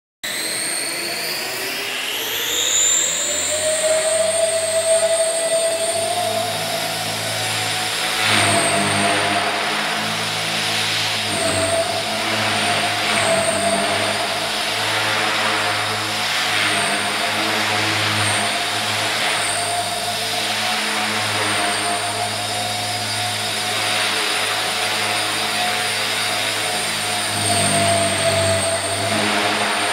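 Small radio-controlled model helicopter spooling up, its whine rising in pitch over the first few seconds as the rotor comes up to speed, then flying with a steady high motor whine and rotor noise that swells and eases as it manoeuvres.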